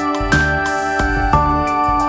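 Background music: soft instrumental music with sustained notes over a steady beat.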